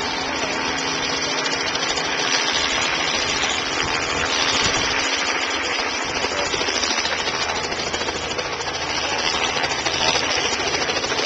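Helicopter hovering, its rotor and engine running steadily with a fast, even flutter.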